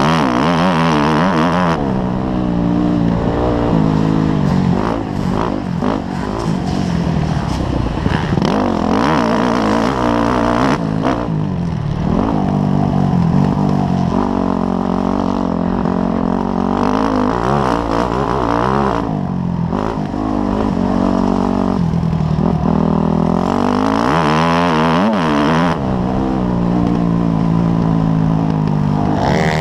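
Motocross dirt bike engine ridden hard, heard from the rider's helmet: its pitch climbs and drops back again and again as the throttle is opened and closed through the track's sections.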